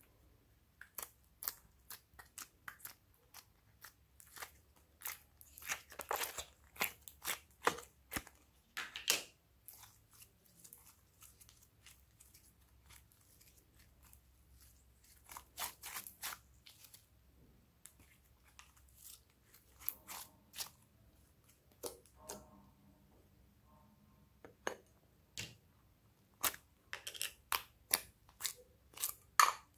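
Slime being pressed and squished between fingers and pulled from its plastic tub, giving runs of sticky clicks and crackles. The clicks come in bunches, with quieter gaps between them.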